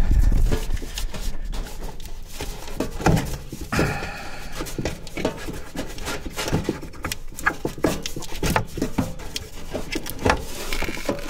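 Irregular clicks, knocks and scraping of hands and metal fittings as the old kitchen faucet's mounting hardware is worked on from beneath the sink, the arm brushing and bumping against the sink bowl.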